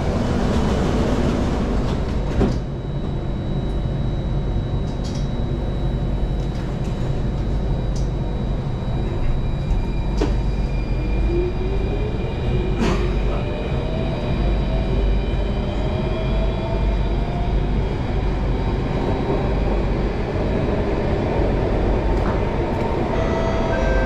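Singapore MRT train pulling away: a thud about two and a half seconds in, then a steady rumble of wheels on rail, with the traction motors' whine rising in pitch from about eleven seconds in as the train accelerates.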